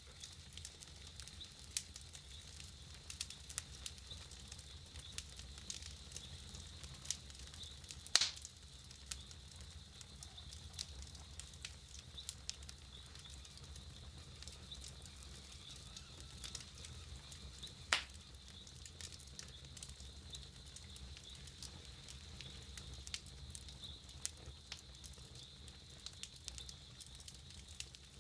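Wood campfire crackling, with frequent small snaps over a low steady rumble and two louder pops about eight and eighteen seconds in.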